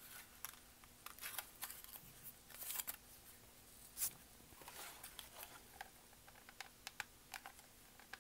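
Faint rustling and light clicks of cardstock paper petals being handled and pinched, with a sharper tick about four seconds in.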